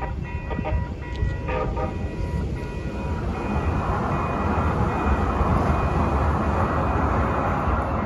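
Light-rail train passing through a level crossing, its wheels on the rails making a rushing noise that swells from about three seconds in. Under it run the steady ringing of the crossing warning bells and a low rumble of road traffic.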